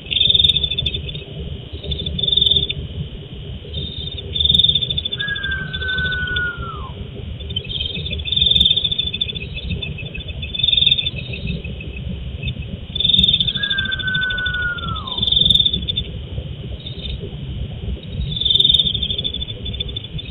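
Night insects chirping in short loud bursts about every two seconds, with a long falling whistle-like call heard twice, over a low rumble. Heard through a CCTV camera's microphone, which cuts off the higher sounds.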